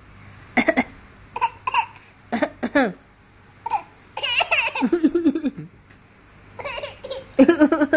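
Young child making a series of short, high-pitched voiced bursts, a playful imitation of a cough, with a longer giggly run of repeated bursts in the middle.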